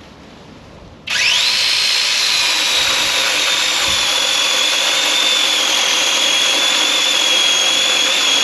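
Seesii SC8B cordless mini chainsaw's brushless electric motor and chain starting up about a second in, spinning up within half a second to a steady high whine that holds as the saw cuts into a branch.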